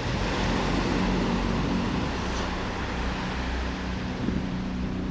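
Surf washing onto a sand beach, over a steady low engine hum.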